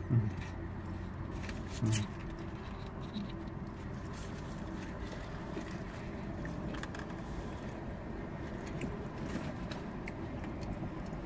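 Quiet eating sounds: chewing and the light crinkle of a paper sandwich wrapper, scattered faint clicks over a steady low hum in a car's cabin. Two short low voice sounds come near the start and about two seconds in.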